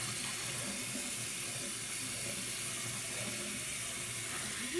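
Hot-water tap running steadily, an even hiss of pouring water.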